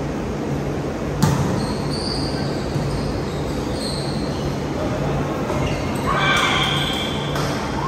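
A volleyball struck hard on the serve about a second in, then rally play in a large gym hall over a steady low hum, with players' voices calling out near the end.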